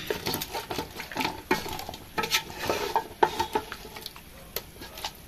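Wooden spatula stirring and scraping chunks of spiced meat around a large aluminium pot in quick, irregular strokes, with a light sizzle of the meat frying in hot onion oil.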